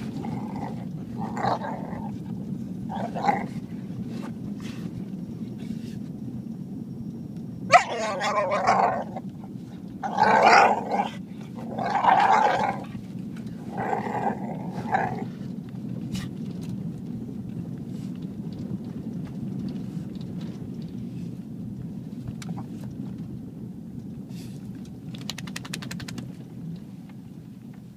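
Lab–pit bull mix dog making Chewbacca noises: about six drawn-out grumbling calls, the loudest run of them from about eight to fifteen seconds in, over a steady low hum.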